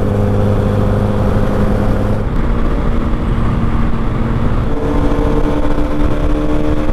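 Motorcycle engine running at a steady cruising speed, with wind noise over the helmet microphone. The engine note drops about two seconds in and settles on a new steady pitch near five seconds.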